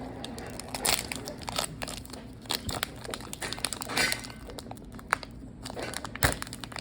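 Plastic wrapper of a trading-card booster pack crinkling and tearing as it is handled and ripped open, in irregular crackles with louder bursts about a second in and about four seconds in.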